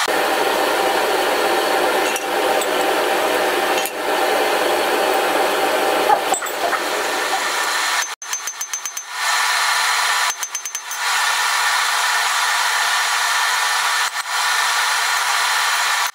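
Steady mechanical whirring, as of a blower motor. It is broken twice, about eight and about ten and a half seconds in, by short runs of rapid, sped-up hammer taps on the anvil.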